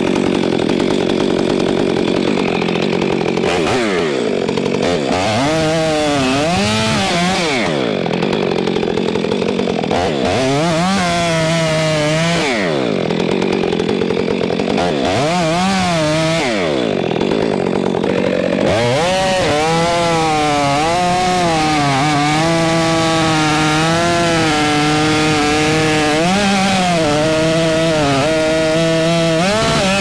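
Two-stroke chainsaw cutting red oak: the engine revs up and drops back several times over the first twenty seconds or so, then stays at high revs under load with a wavering pitch for the rest.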